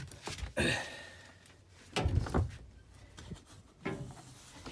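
Handling and movement noise from a handheld phone camera: a brief rustle about half a second in, then a few dull low thumps around two seconds in and a faint click near the end.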